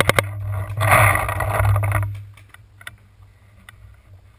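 Paintball marker firing the last shots of a rapid burst, about a dozen shots a second, stopping just after the start; then about a second of hiss, followed by a few faint scattered pops.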